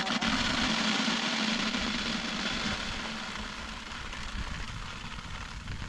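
Dried grain poured in a steady stream from a plastic bucket held at shoulder height onto a tarp, as in winnowing: a continuous hiss of kernels landing that eases slightly near the end. A low hum sits under it for the first two seconds or so.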